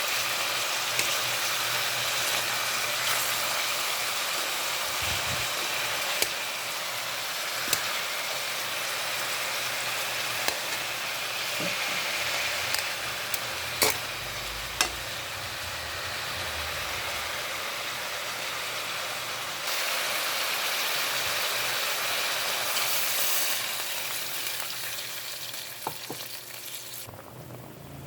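Food sizzling steadily in a hot cooking pan, with a few sharp clicks along the way. The sizzle drops off suddenly about a second before the end.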